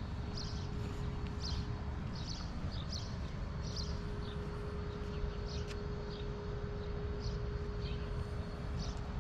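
Walking footsteps crunching on a gritty road surface, a short crisp step about every half to two-thirds of a second, over a steady low rumble and a faint steady hum that grows stronger about four seconds in.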